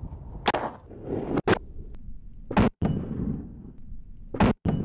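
Thompson submachine gun (Tommy gun) firing .45 ACP rounds: about six sharp shots, irregularly spaced over a few seconds.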